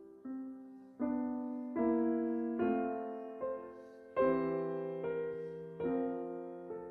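Slow, gentle background piano music: soft chords struck about once a second, each left to ring and fade.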